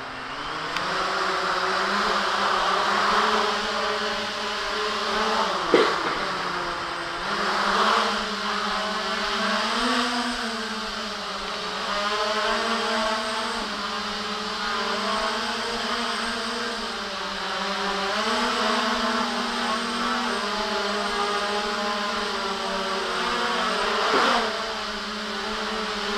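JJRC X1 quadcopter's brushless motors and propellers hovering under the load of two added cameras, the hum's pitch rising and falling as the throttle is worked. Two short sharp clicks stand out, about six seconds in and near the end.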